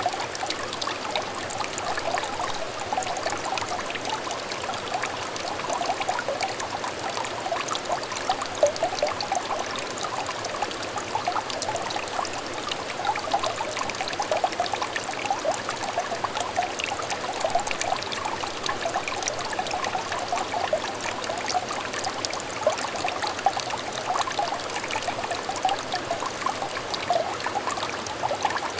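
Small stream trickling and babbling steadily, with a dense, even patter of small bubbling plinks.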